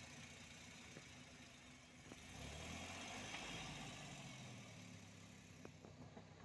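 Faint, steady low engine hum that swells slightly about two and a half seconds in, with a few light clicks.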